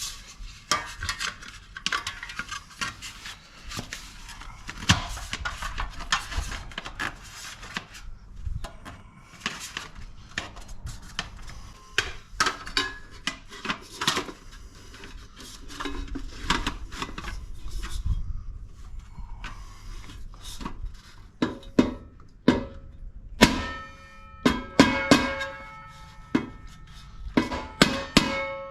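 Light aluminium wheel trim being worked onto a steel car wheel: scraping and clicking as it is handled and fitted. About three-quarters of the way through come sharper taps, each leaving the thin metal trim ringing.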